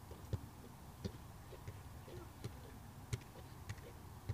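Football being kicked and juggled on an outdoor court: a string of faint, sharp taps of foot on ball, about one every half second to a second.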